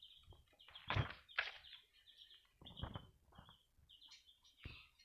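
Pages of a paperback picture book being turned and handled: several short, soft paper rustles and flaps.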